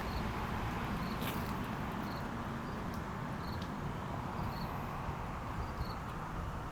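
Short high chirps, roughly one a second, from a small animal, over a steady low background rumble.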